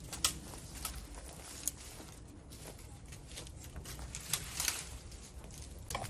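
Irregular crackles and rustles of dry branches and brush being handled or trodden on, with a few sharper snaps.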